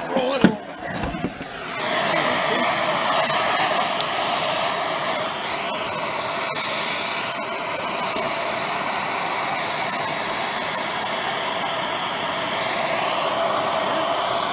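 A few clunks as the heavy transmission case is shifted on the floor, then from about two seconds in a handheld gas torch burns with a steady rushing hiss. The torch is heating a rusted nut to expand it and free a seized stud.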